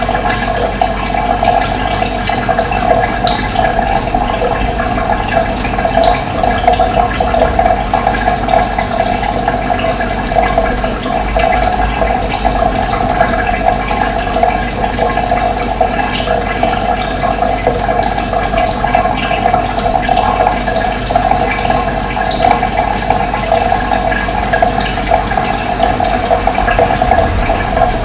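Steady rush of running water, with short high bird chirps scattered through it.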